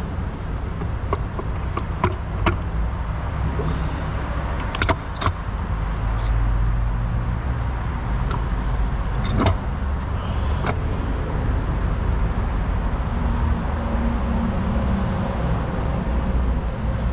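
Sharp metallic clicks and knocks, a handful scattered through, as a new clutch assembly is worked by hand onto the transmission input shaft and seated. A steady low hum runs underneath.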